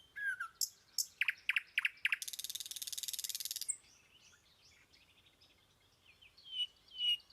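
Small birds calling: a few short high chirps, a rapid buzzy trill lasting about a second and a half, then after a short pause a run of repeated short whistled notes near the end.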